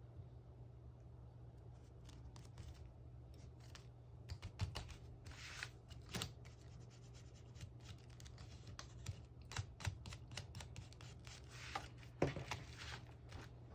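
Scrapbooking paper and stationery being handled on a desk: scattered small clicks and taps, with a few short paper rustles or scrapes, over a faint steady low hum.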